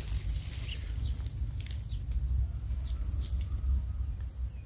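Outdoor ambience: a steady low rumble with faint, short chirps scattered through it.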